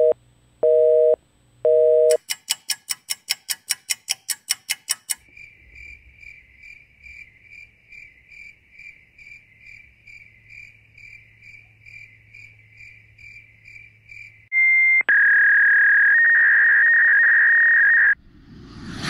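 Electronic sound effects: a telephone busy signal for about the first two seconds, then fast ticking at about five ticks a second for about three seconds. Then a high beeping tone pulsing about twice a second for about nine seconds and a steady high beep for about three seconds, with a whoosh right at the end.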